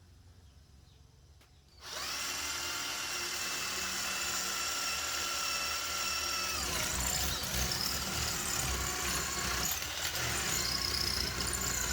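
Electric drill starting about two seconds in and running steadily, boring mounting holes in the wall for plastic anchors; its motor whine drops in pitch about halfway through.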